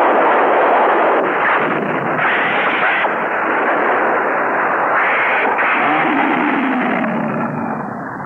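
Monster-movie battle sound effects: a dense, continuous din of explosions and burning fire, loud throughout and easing off near the end. It comes through the dull, narrow sound of an old TV broadcast recording.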